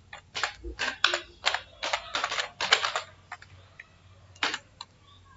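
Computer keyboard typing: a quick run of about a dozen keystrokes over the first three seconds, then one more click about a second and a half later.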